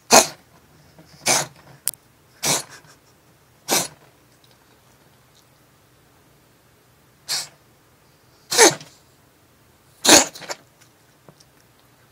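A black-and-white cat sneezing in a fit: seven short, sharp sneezes. Four come about a second apart, then there is a pause of about three seconds, then three more.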